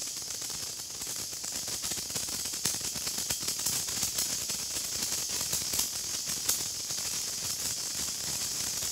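A burning senko hanabi (Japanese incense sparkler) in its branching-spark stage, fizzing with a steady high hiss and many faint irregular crackles as the glowing dross ball throws sparks.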